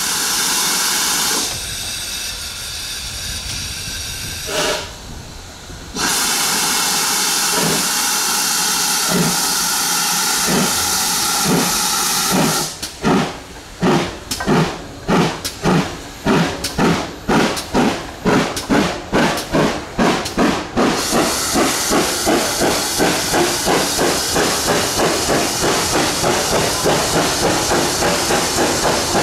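GWR-design 0-6-0 pannier tank locomotive 9681 getting a train under way. Steam hisses throughout, then its chimney exhaust beats start slow and quicken steadily to about three a second as the engine gathers speed.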